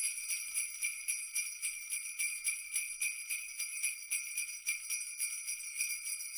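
Sleigh bells shaken steadily in a quick, even rhythm of several shakes a second, a bright jingling ring.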